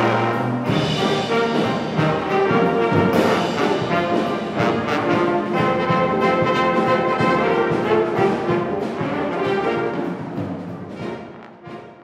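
A jazz big band playing, with the brass section to the fore. The music fades out near the end.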